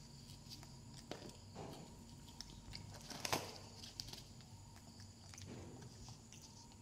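Faint rustling and small clicks of rubber toy dinosaurs being picked up and put down on a foam play mat, with one sharper click a little over three seconds in.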